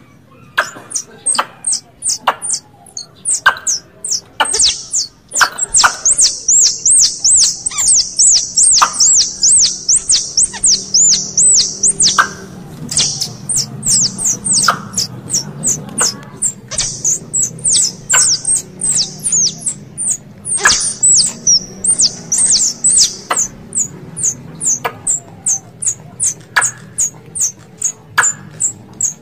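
Recorded squirrel calls used as a hunting lure: a long series of sharp, high chirps, each dropping in pitch. They come in a fast run through the middle, then more spaced out, with sharp clicks between them and a low hum underneath.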